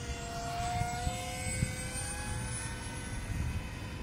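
Electric motor and propeller of a Dynam Hawksky V2 RC glider flying under power high overhead: a thin, distant whine whose pitch creeps slightly upward about a second in, over a low rumble.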